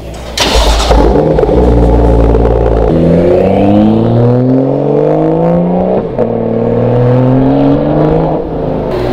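BMW M2's turbocharged straight-six through a Remus cat-back exhaust, with a sudden loud flare about half a second in, then running steadily. It then pulls away, the exhaust note rising in pitch, breaking briefly for a gear change about six seconds in and rising again.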